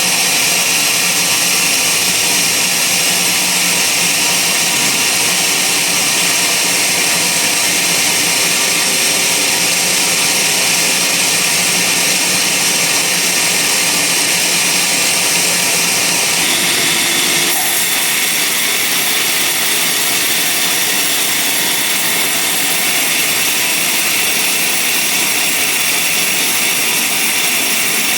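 Band sawmill running, its blade cutting through a log with a loud, steady sound. The tone shifts slightly about seventeen seconds in, then carries on evenly.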